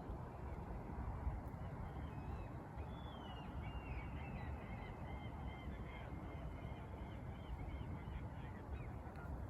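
Birds calling: a long run of short, quickly wavering chirps about two and a half seconds in, over a steady low rumble.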